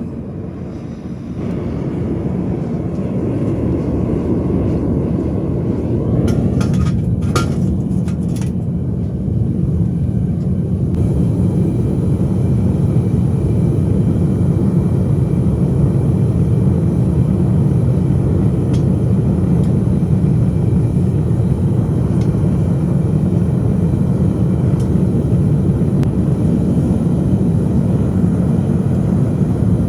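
Gas burners firing into a homemade melting furnace: a steady, loud, deep roar that comes on suddenly and builds over the first few seconds as the burners are lit and opened up. A few short clanks come about seven seconds in.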